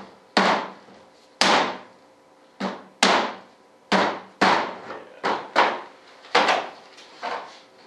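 About ten sharp knocks on a fiberglass mold, spaced half a second to a second apart, each ringing briefly. The mold is being struck to work a molded RC jet vertical stabilizer free of it.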